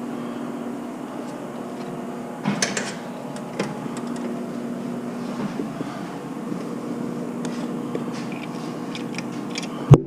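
Steady mechanical hum with a few light clicks, ending in a sharp loud knock.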